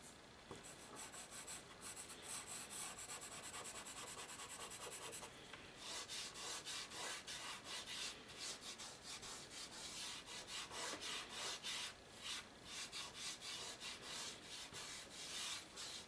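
Charcoal pencil scratching on paper in quick, repeated short strokes as dark shading marks go down, with brief pauses about five seconds and about twelve seconds in.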